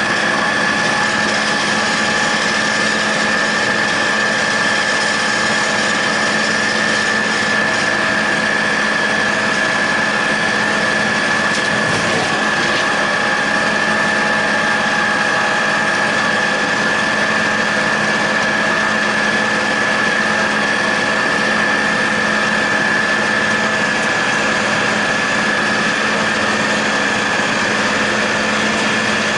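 John Deere 8100 tractor's six-cylinder diesel and a John Deere 946 MoCo discbine running steadily together while mowing hay under load, with a constant high whine and a steady low hum over the machine noise.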